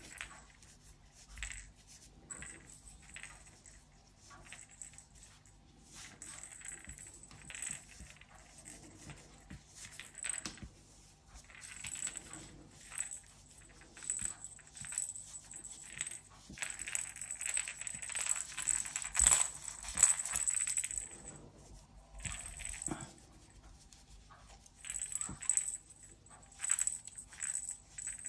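Fibre stuffing being worked down into a crocheted amigurumi rattle handle by hand: soft intermittent rustling and scrunching with light clinking rattles, busiest a little past the middle.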